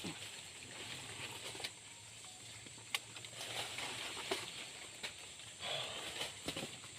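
Irregular rustling and snapping, like footsteps through dry leaves and twigs on a forest floor, with a few sharp cracks.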